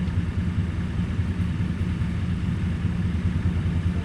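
Tractor engine running steadily at idle, a low even drone.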